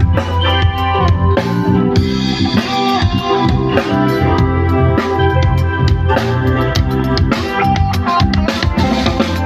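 Live band playing a soul-style number: a drum kit keeping a steady beat over a low bass line and chords, as a sound check.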